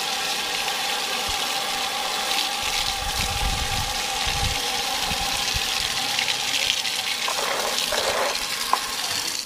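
Running water pouring steadily from a pipe into a plastic basin of water and over a boiled pig's head, splashing as it rinses it. Near the end, hands rub and splash the head under the stream.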